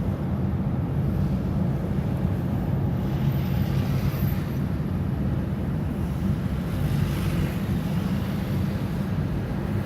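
Steady interior sound of a car being driven with a window half open: a low rumble of engine and road noise, with wind coming in through the open window.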